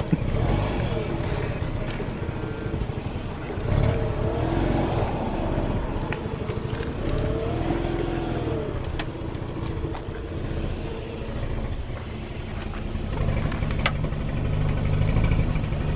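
Mazda RX-8's rotary engine running at low speed as the car is eased along, its pitch twice rising and falling briefly.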